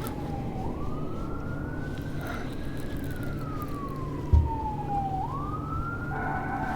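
A siren wailing: a single tone rising and falling slowly, about five seconds a cycle, over a low steady hum, with one short thump about four seconds in.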